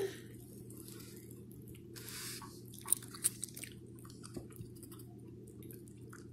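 Toddler eating corn on the cob: faint chewing, biting and squishy mouth sounds, with a few small clicks about three to four seconds in, over a steady low hum.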